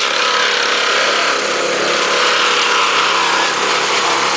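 Heavy engine-driven machinery running steadily and loudly, a dense mechanical din with no pauses.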